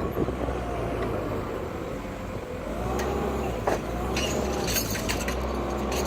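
Diesel engine of paving machinery running steadily, with a whine that rises and falls in pitch a few times and scattered sharp clacks.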